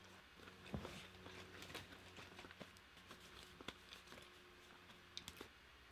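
Near silence: room tone with a low steady hum and a scattering of faint, short clicks and taps, the strongest about a second in.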